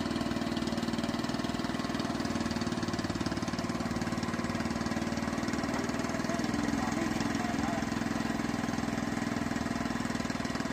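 Small engine of a pond-draining water pump running steadily at constant speed.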